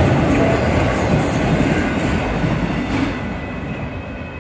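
Tail end of a Union Pacific manifest freight train rolling past, with a steady rumble and rattle of freight car wheels on the rails. It fades about three seconds in as the last cars go by.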